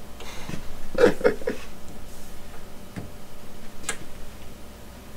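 A few light clicks and taps of handling, the sharpest a little before four seconds in.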